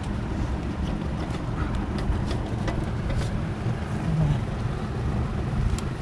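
Scattered light clicks and knocks of metal parts as a loosened alternator is worked down out of a car's engine bay, over a steady low rumble.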